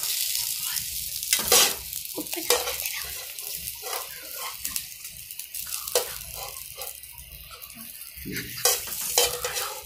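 Chopped okra (ladies finger) sizzling in hot oil in a pan as it is stirred: a steady frying hiss with a few louder stirring strokes.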